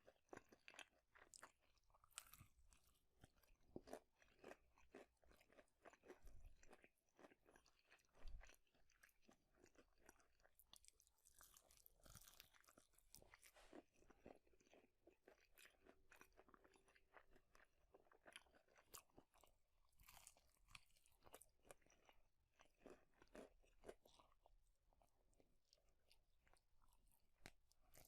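Faint, close-miked chewing of fast food, with irregular wet clicks and crunchy bites throughout.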